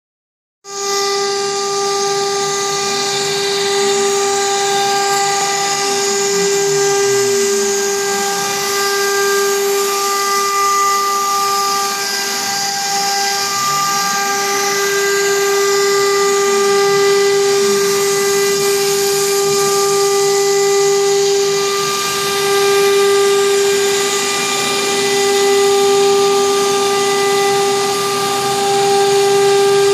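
CNC router's high-speed spindle whining at a steady high pitch while its bit cuts through a wood panel, with a hiss of cutting on top. It starts just under a second in, and fainter tones slide up and down underneath as the gantry's axis motors speed up and slow down.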